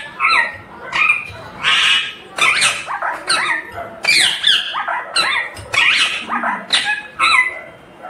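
Indian ringneck (rose-ringed) parakeet calling loudly in a rapid series of short calls, about two a second, each sliding in pitch.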